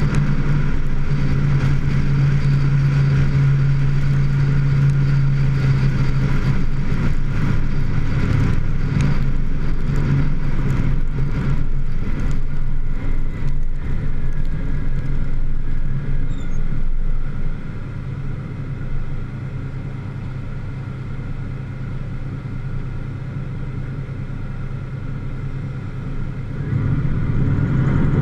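Vehicle engine running steadily at road speed with tyre noise on a wet road. About two-thirds of the way through it gets quieter as the vehicle slows, then it picks up again near the end.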